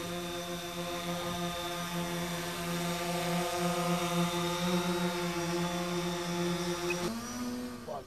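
Quadcopter drone flying close by, its propellers giving a steady buzzing hum of several tones; near the end the hum thins and shifts up in pitch.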